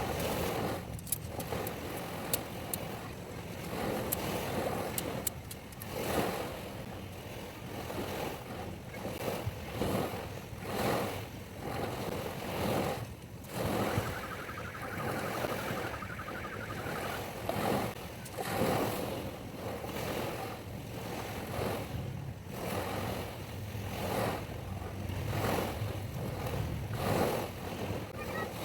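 Wind buffeting the microphone over surf on a beach, rising and falling in irregular gusts every second or two, with a few sharp clicks about a second in.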